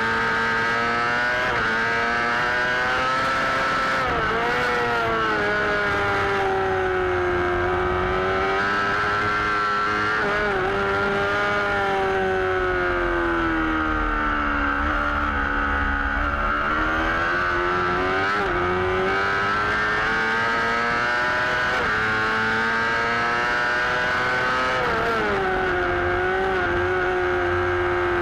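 A Suzuki GSX-R600 race bike's inline-four engine running hard at high revs through a racing lap. The pitch holds high, sags slowly through the middle, then climbs again, with short hitches about four times along the way.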